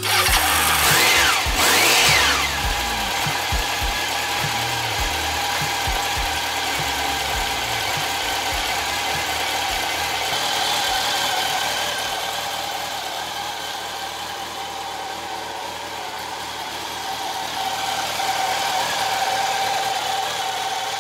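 Honda CB750 RC42's air-cooled inline-four engine starting up, revved up and down briefly in the first couple of seconds, then settling into a steady idle.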